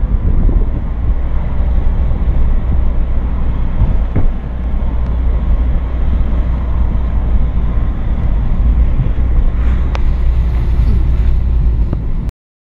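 A car driving, heard from inside: a steady low rumble of engine and road noise that cuts off suddenly near the end.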